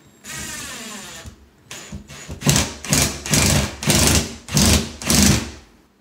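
Cordless driver sinking a wood screw through a plastic junction box into a 2x4: one run of the motor about a second long whose pitch drops as it slows under load, then a string of short trigger bursts, about two a second, as the screw is driven home.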